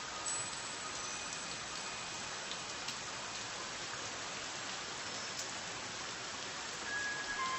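Steady rain, an even hiss of falling drops, with a few faint held tones of soft background music.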